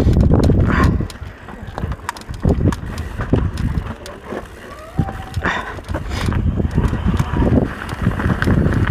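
Mountain bike on a trail with wind buffeting the microphone, and irregular clicks and knocks from the bike over rough ground. The wind rumble is heavy at first, drops after about a second and builds again near the end.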